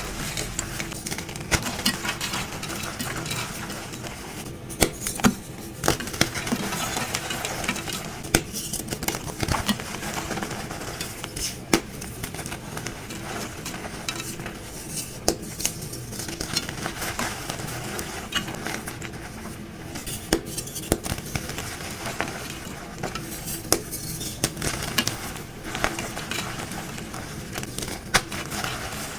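Dyed gym chalk blocks being crushed and crumbled: steady crunching and scraping with frequent sharp clicks at irregular moments.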